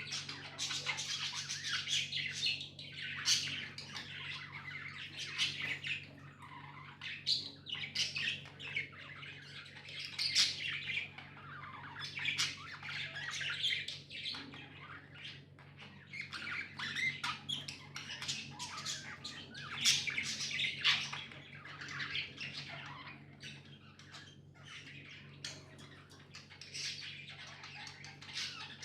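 Pet budgerigars chattering continuously, a dense run of quick high chirps with sharp squawks mixed in.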